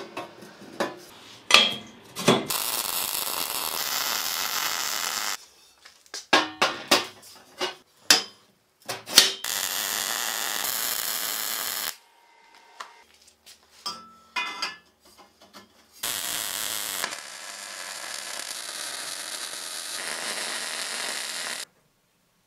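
Metalworking sounds: sharp metal clanks and knocks, broken by three stretches of steady hissing power-tool noise, each starting and stopping abruptly.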